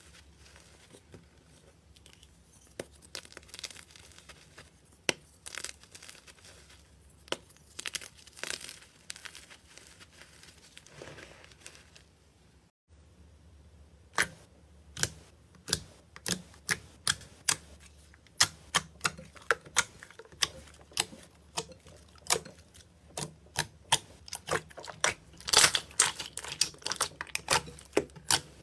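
Slime being squished and pressed, giving sticky pops and crackles: scattered soft crackles at first, then, after a brief break near the middle, a steady run of sharp pops about two to three a second.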